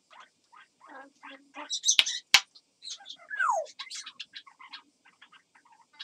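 African grey parrot imitating crow sounds: a rapid run of short clicks and chirps, a harsh squawk about two seconds in with a sharp click just after, and a falling whistle about three and a half seconds in.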